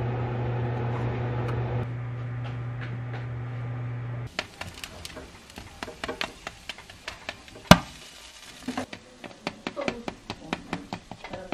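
A countertop convection oven runs with a steady hum that stops abruptly after about four seconds. Then freshly roasted pork belly crackles with scattered sharp pops while metal tongs click against the meat and the wire rack, with one loud clack about two-thirds of the way in.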